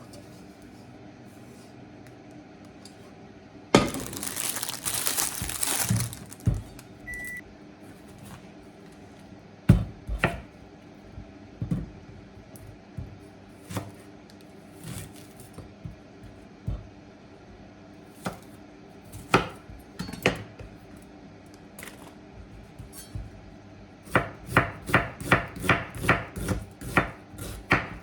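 Kitchen prep at the counter: scattered single knocks and clatter, with a noisy burst of about two seconds early on. Near the end comes a quick, even run of about ten knife chops on a cutting board, about three a second.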